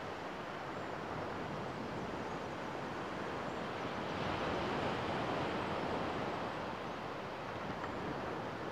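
Small sea waves washing onto a sandy beach: a steady rushing that swells for a couple of seconds about halfway through.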